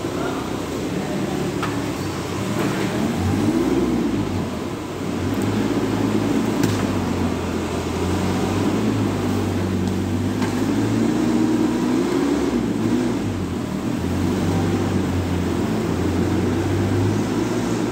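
Forklift engine running, its pitch rising and falling as it revs up and down while the forklift clamps and moves a cardboard bale.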